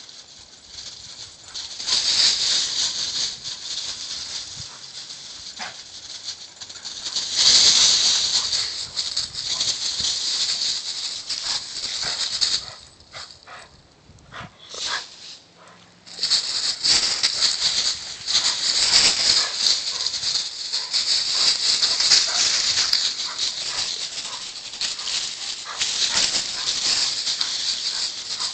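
Dry fallen leaves crunching and rustling under German shorthaired pointers running and chasing through them, a dense crackle that comes in loud stretches with a quieter lull about halfway through.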